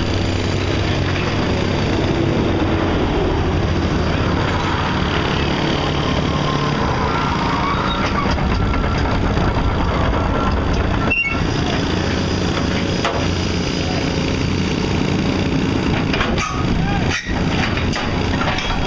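Heavy construction machinery with diesel engines running steadily, with brief dips in the noise about eleven and seventeen seconds in.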